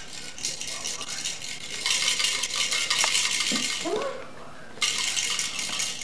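Fast, steady rattling of something shaken, like a baby's rattle or a jingling toy. It stops sharply near the five-second mark and starts again. A brief rising vocal sound comes about three and a half seconds in.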